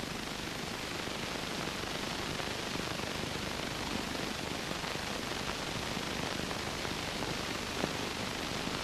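Steady hiss of soundtrack noise with a few faint clicks.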